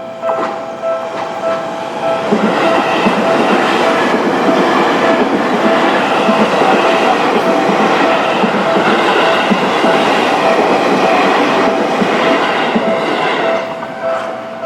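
A Seibu Shinjuku Line electric commuter train passes over the level crossing, its wheels clattering over the rail joints; the noise builds about two seconds in and fades just before the end. The crossing's warning bell rings through it in a steady repeating tone.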